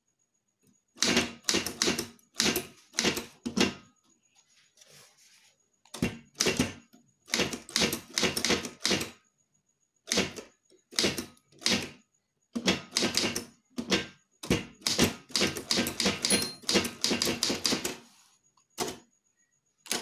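Prima manual typewriter being typed on: quick runs of sharp key strikes, separated by short pauses of about a second between words.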